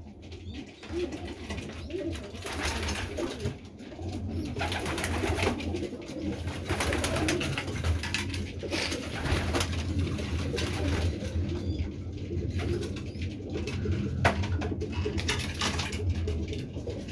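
Racing pigeons cooing continuously in an enclosed loft, with intermittent stretches of hiss-like noise over the coos.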